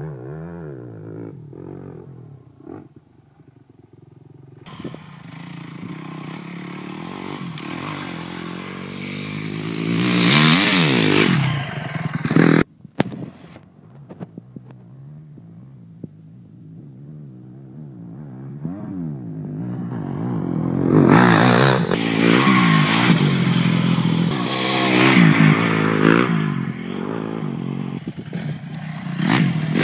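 Dirt bike engine revving up and down as it rides the trail, the revs rising and falling again and again. It gets loud twice as the bike comes close, about ten seconds in and again in the last third, with a brief cut-out in between.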